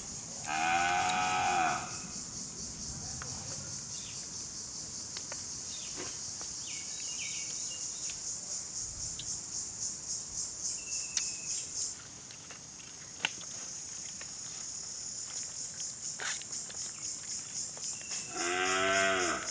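Insects buzzing in a steady high drone that pulses about twice a second, with a long drawn-out call rising and falling in pitch near the start and again near the end.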